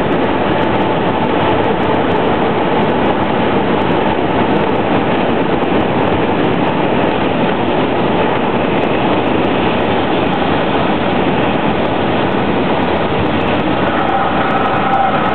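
Cessna 172N's four-cylinder Lycoming engine throttled back for landing, heard inside the cockpit together with the rush of air, a loud steady noise through the flare, touchdown and rollout. About fourteen seconds in, a steady high tone joins it.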